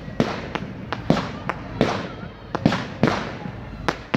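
Low-bang fireworks going off close by: a rapid run of sharp pops, about three a second, each trailing a short hiss as the effects burst.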